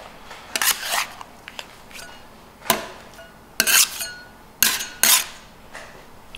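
Metal scraper scraping and knocking on a marble slab while cutting and lifting off a section of cooling hard candy. There are several short strokes about a second apart, with a sharp clack about three seconds in.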